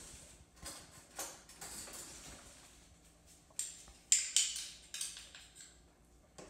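Small kitchen handling sounds as something from a small dish is added into a slow cooker: a soft rustle, then a few sharp clicks and scrapes about three and a half to five seconds in.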